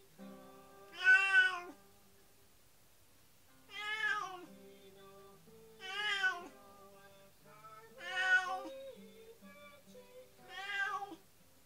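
A domestic cat meowing five times, each a loud drawn-out meow that rises and falls in pitch, spaced two to three seconds apart, with the first the loudest. Soft background music plays underneath.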